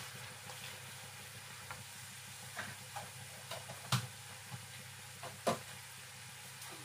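Squid rings in a cajun sauce sizzling steadily in a nonstick wok on a gas burner, with a few scattered clicks and knocks of a spatula against the pan, the loudest about four and five and a half seconds in.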